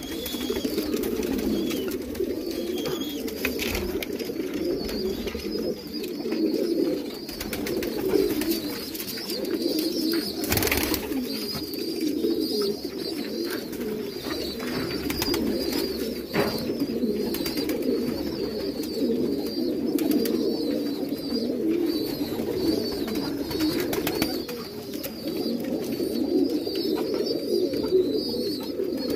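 Many domestic pigeons cooing together, a continuous, overlapping low murmur.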